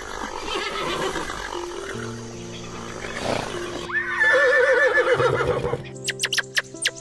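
A horse whinnying: one wavering neigh of nearly two seconds that starts suddenly about four seconds in, after a stretch of rough scuffling noise. Near the end come a few short, sharp squeaky chirps from a red squirrel. Background music plays throughout.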